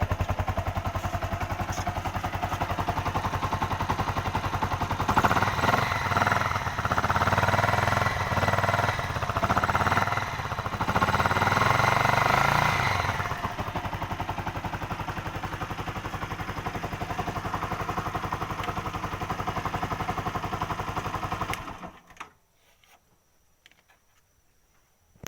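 Yamaha R15 V2's single-cylinder engine running after a rebuild. It idles with even, rapid firing pulses, is revved up several times between about five and thirteen seconds in, settles back to idle, then cuts off suddenly near the end.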